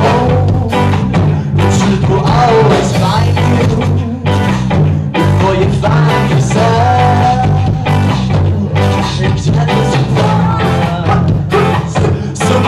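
Ska band playing live and loud: saxophone, electric guitar and drums, with a singer at the microphone.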